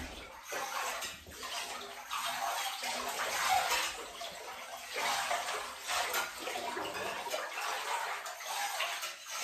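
Bathwater being stirred with a kitchen whisk, sloshing and splashing in repeated uneven swishes.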